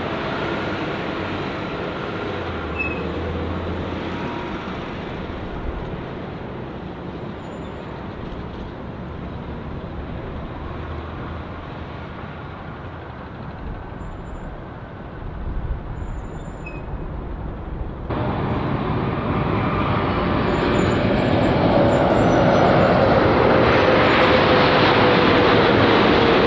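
Airbus A380 jet noise, a steady rushing rumble that slowly fades as the airliner rolls out down the runway after landing. About two-thirds of the way in, it changes abruptly to a Boeing 747-8 on final approach: the noise of its GEnx turbofans grows louder, with a whine that slowly falls in pitch.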